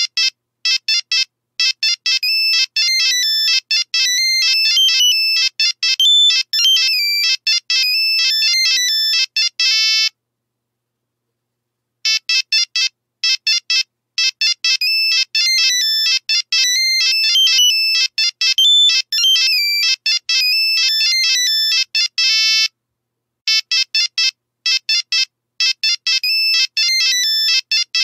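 Nokia mobile phone ringtone: a quick, high-pitched electronic melody of short notes, repeating as it rings. It breaks off for about two seconds some ten seconds in, and briefly again later.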